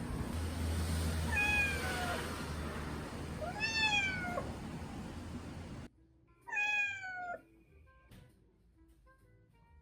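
A cat meowing three times, a couple of seconds apart, each meow falling in pitch at its end. A steady background noise cuts off abruptly before the third meow.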